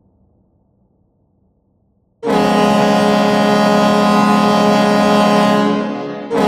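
Chicago Blackhawks goal horn, a deep ship-style air horn, recorded dry without added reverb. It starts sharply about two seconds in and holds a steady blast for about four seconds. It fades briefly, then blasts again just before the end.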